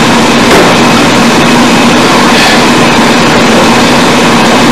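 Loud, steady hiss with a constant low hum running under it: the noise floor of a very poor-quality, heavily amplified recording, with no voice on it.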